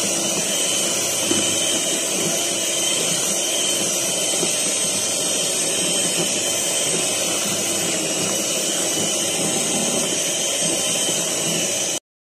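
Electric hand mixer running steadily at speed, its beaters whipping egg-white meringue in a plastic bowl as softened butter is worked in for Swiss meringue buttercream. The motor's steady whine stops abruptly just before the end.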